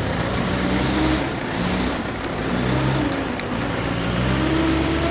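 An engine running steadily, its pitch wavering, then rising and holding higher about four and a half seconds in, with a single sharp click about three and a half seconds in.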